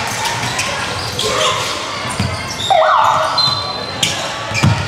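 Basketball bouncing on a hardwood court in a large echoing sports hall, a few separate thuds amid players' voices, with a brief high-pitched sound about halfway through.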